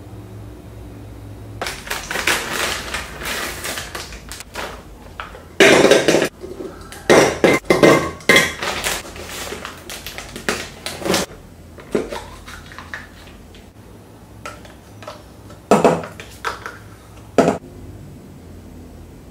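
Kitchen clatter: dishes, utensils and cookware clinking, knocking and scraping in an irregular run, busiest in the middle, with two sharp knocks near the end.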